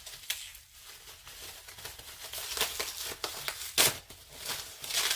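Packaging crinkling and tearing as a notebook is pulled out and unwrapped by hand: a run of irregular rustles, with one sharp, loud crackle just before four seconds in.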